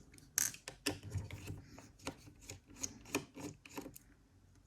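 A screwdriver working out the small screws that mount a laptop's 2.5-inch hard drive: a quiet, irregular run of light clicks and scrapes, about three or four a second.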